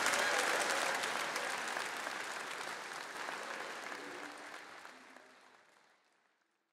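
Congregation applauding, a dense patter of clapping that fades out steadily to silence over about six seconds.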